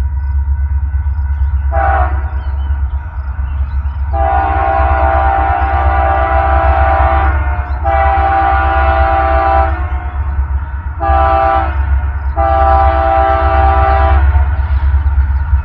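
Locomotive air horn, a Nathan K3L five-chime, sounding the grade-crossing signal: long, long, short, long, after a brief first toot, over the steady low rumble of the train's diesel locomotives.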